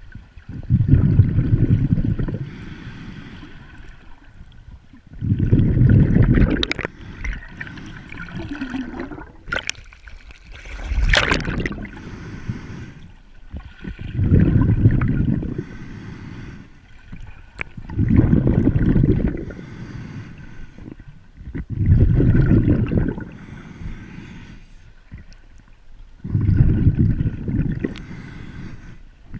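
Underwater sound of a snorkeler swimming, heard through the camera's waterproof housing: a muffled low rush that surges about every four seconds, with a fainter steady hiss in between.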